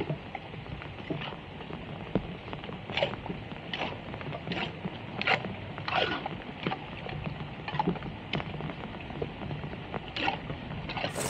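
Steady rain on flooded pavement, with irregular splashes and sloshes as hands scoop wet leaves and debris out of a water-filled gutter, about one every second.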